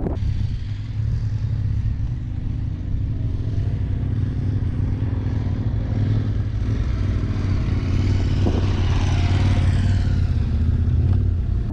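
Large adventure motorcycles running on a gravel track: a steady engine hum with wind and gravel noise. Near the end another motorcycle rides up close and grows louder.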